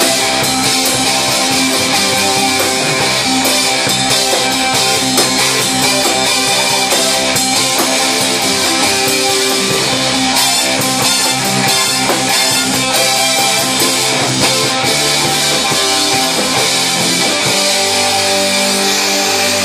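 Live rock band playing loudly: electric guitars over a drum kit keeping a steady beat.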